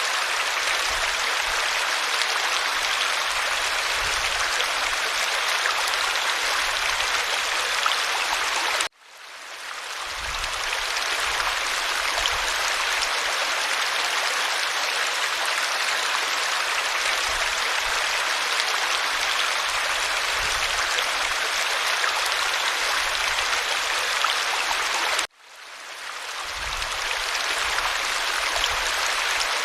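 Steady rushing of a flowing stream. It cuts out abruptly twice, about a third of the way in and again near the end, and each time fades back in over a second or two, as at a loop point.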